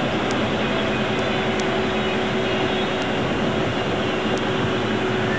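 Steady road and engine noise of a moving car heard from inside the cabin, with a steady hum under it and a few faint ticks.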